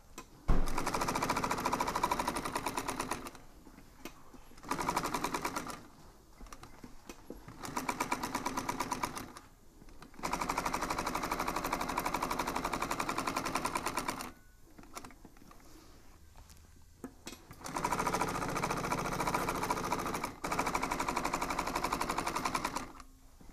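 Industrial sewing machine stitching single-diamond lines through a foam-backed upholstery panel: a rapid, even stitching rhythm in about six short runs that stop and start.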